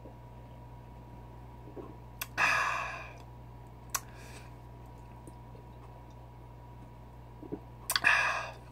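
A man's breathy exhales after gulping down malt liquor, two short "aah"-like sighs, one about two seconds in and one near the end, with a few small mouth clicks between.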